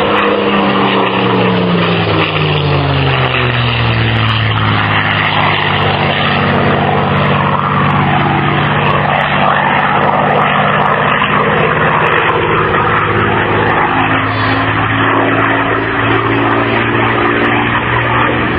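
Supermarine Spitfire's piston engine and propeller in a display flypast. The engine's pitch drops over the first few seconds as it passes, holds steady, then rises again near the end as it comes back round.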